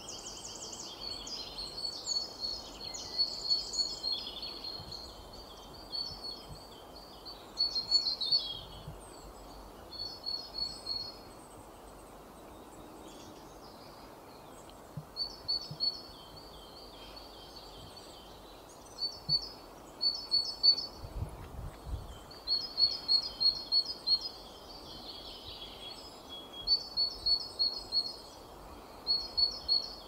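Songbirds singing: short phrases of quick, high chirping notes, repeated with pauses between them, over a steady background hiss. There are a few brief low thumps about two-thirds of the way through.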